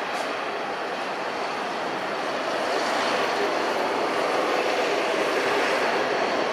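Airbus A320 airliner's jet engines heard during its landing, a steady rushing roar that grows slightly louder a few seconds in.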